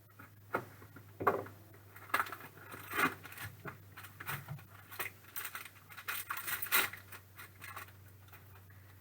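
Trading cards and their packaging being handled on a table: irregular clicks, scrapes and rustles, with a sharper click about a second in.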